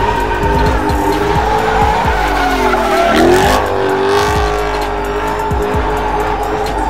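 Engine revving up and down with tyres squealing as a vehicle spins donuts on asphalt; the revs dip and climb sharply about three seconds in.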